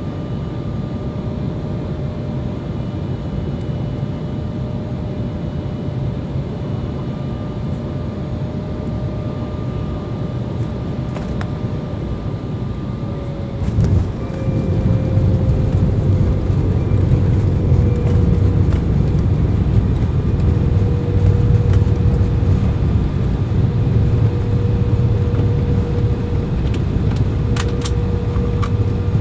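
Cabin noise of an Embraer E-Jet on final approach: steady jet-engine drone with a whining tone that slides slightly lower. About fourteen seconds in, the wheels touch down and the noise jumps to a louder, heavier rumble as the jet rolls out along the runway.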